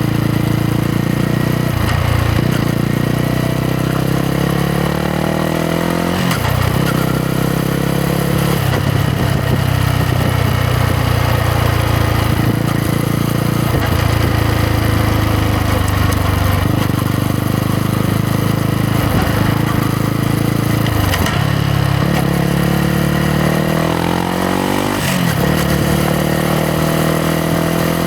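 Yamaha MT-125's single-cylinder four-stroke engine running under way. The revs climb and then drop sharply at gear changes several times, with steady running between.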